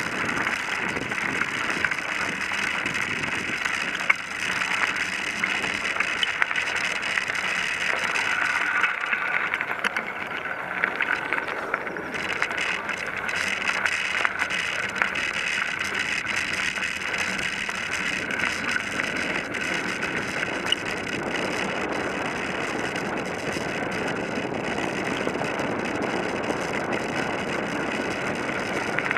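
Bicycle rolling along a gravel forest path: steady tyre noise on gravel, with frequent small rattles and clicks from the bike.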